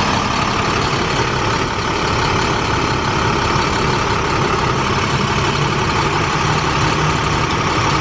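Heavy vehicle engine idling steadily, heard close up.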